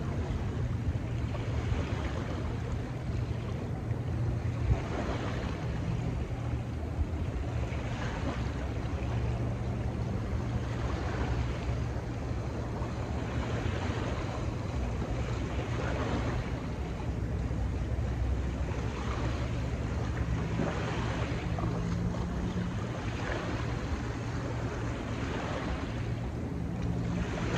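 Small river waves lapping and washing onto a sandy bank close by, a soft wash every two or three seconds, over a steady low rumble.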